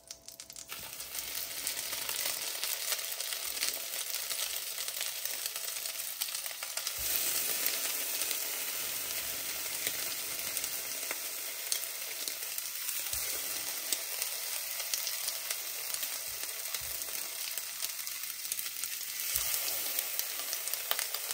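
Butter sizzling in a non-stick frying pan as egg-and-milk-soaked croissants fry in it. The sizzle swells about a second in, with a few soft knocks as more croissants are set down in the pan.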